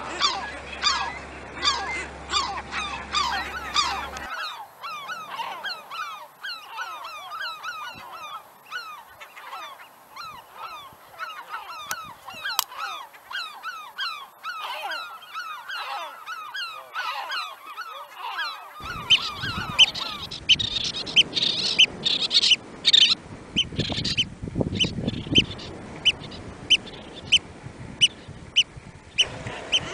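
Seabirds calling at a colony, many short calls overlapping, the chorus changing in character a few seconds in. From about two-thirds through, Eurasian oystercatcher calls stand out: sharp high piping notes, about two a second, over a low rushing background.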